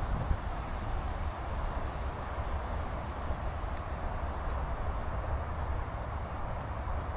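Wind buffeting the action camera's microphone with a low, fluctuating rumble, over a steady rushing hiss.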